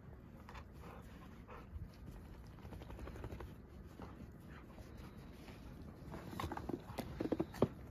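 Two dogs play-wrestling in snow: quiet scuffling with scattered short sounds, then a quick flurry of short dog vocalizations about six seconds in, loudest near the end.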